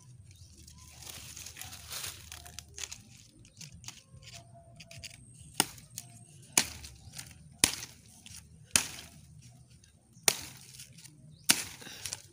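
A blunt knife chopping at the tough stalk of a pineapple: rustling and scraping, then six sharp cracking chops about a second apart in the second half as the blade bites into the stem.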